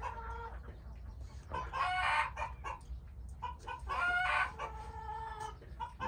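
A rooster crowing twice, about two seconds apart, each crow ending in a long held note.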